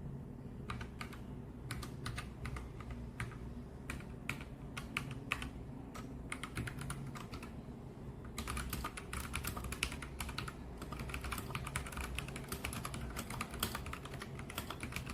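Typing on a SHAVALIFE K87 mechanical keyboard: sharp keystroke clicks, scattered at first, then fast and continuous from about eight seconds in.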